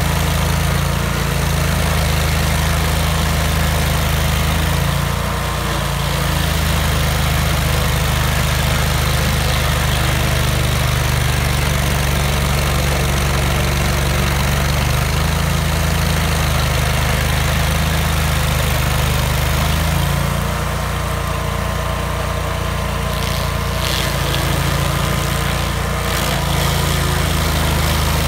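Vermeer stump grinder's engine running steadily while its cutter wheel works at a stump, the engine note shifting a few times.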